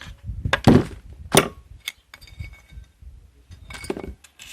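Sharp metal clinks and knocks as broken pieces of a piston are worked loose and handled inside an opened motorcycle engine's crankcase, the two loudest about two-thirds of a second and a second and a half in, with a few lighter taps later.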